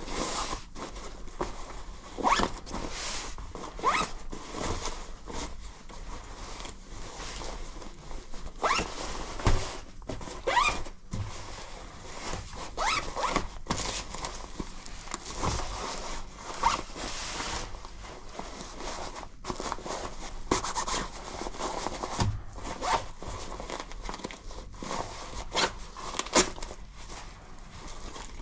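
Zippers on a ripstop fabric jacket being pulled open and shut again and again, many short zips, some rising in pitch, with fabric rustling between them.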